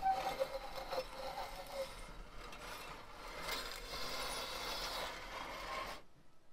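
Firewood burning in a domed wood-fired oven: a steady crackling hiss with scattered snaps, which cuts off suddenly about six seconds in.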